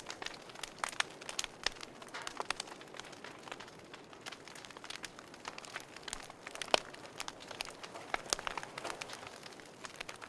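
Fire crackling: irregular snaps and pops over a steady hiss, with one louder pop about seven seconds in.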